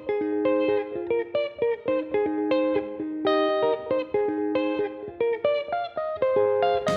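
Intro music: a guitar picking a repeating melody of single notes, several a second.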